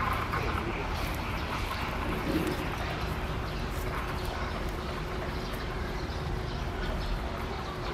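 Outdoor ambience: a steady low rumble with faint bird calls.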